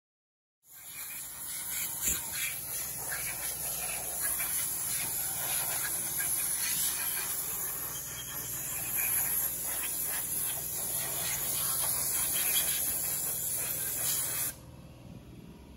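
Compressed-air siphon sprayer blowing mineral spirits and air through a bare LS engine block to clean it out: a steady loud hiss that starts about a second in and cuts off suddenly near the end.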